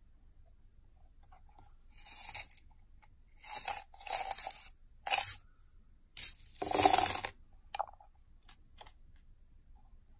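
A handful of metal coins clinking and jingling as they are fed into a mouth-shaped coin bank. The sound comes in about seven short bursts, starting about two seconds in, with the longest near the end and a couple of faint clicks after.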